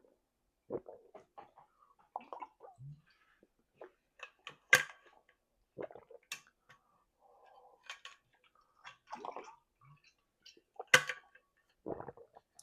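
Close-up wet, messy chewing: an irregular run of short squelches and lip smacks, with two much louder sharp smacks, one about five seconds in and one near the end.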